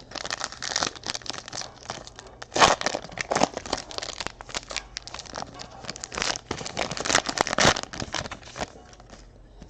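Foil wrapper of a trading-card pack being torn open and crinkled by hand: a dense run of rustles that stops shortly before the end.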